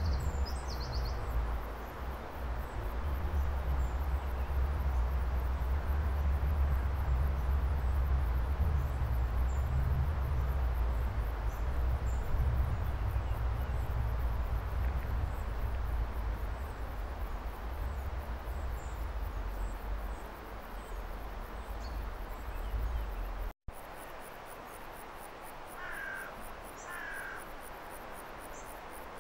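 Insects chirping in a fast, steady high pulse, under a low rumble of wind on the microphone that stops abruptly a few seconds before the end. Near the end a bird gives two short calls.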